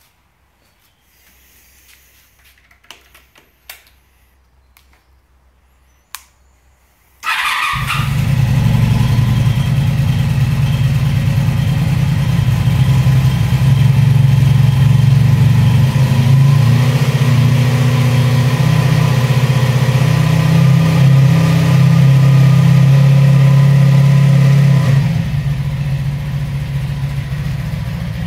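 Honda VF700 Magna's V4 engine cold-started: after a few light clicks, the starter fires it about seven seconds in and it catches almost at once, then idles with a steady, even note. About 25 seconds in the idle note drops and gets quieter.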